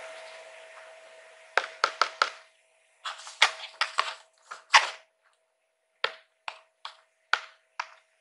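Fingernails tapping on a cardboard blind box: three quick taps, then a cluster of taps between about three and five seconds in, then single taps about every half second. A soft hiss fades out at the start, and a faint steady hum runs underneath.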